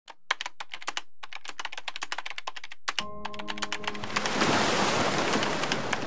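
A quick run of computer-keyboard typing clicks. About halfway through, music with long held notes comes in under the clicks, and a rushing wash of noise swells up and fades near the end.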